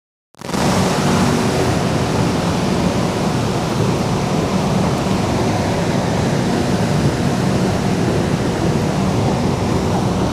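Steady rushing hum of an underground metro station platform. The sound drops out at the very start and fades back in about half a second in.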